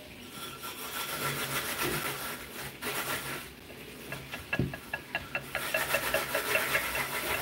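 Wire balloon whisk beating thick batter in a glass bowl, its wires scraping and clicking against the glass. There is one knock about halfway through, and near the end the strokes settle into a quick, even rhythm of about four a second.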